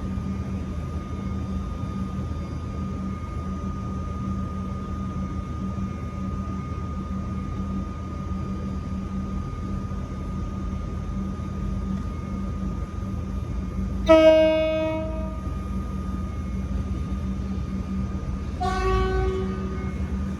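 V/Line VLocity diesel multiple unit running with a steady hum while its low-note horn sounds twice: a loud blast of about a second and a half, then a second, softer blast at a slightly higher pitch about four seconds later.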